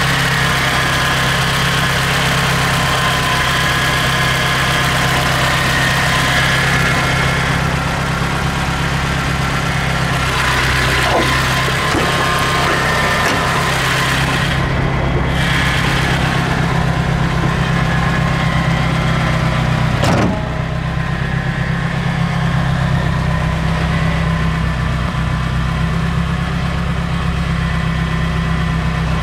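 Nissan FJ20ET turbocharged 2.0-litre inline-four engine of a DR30 Skyline RS Turbo idling steadily.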